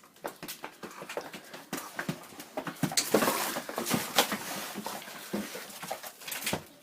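Dog moving and scuffling about: a busy run of scratchy rustling and clicking, loudest about three to four seconds in.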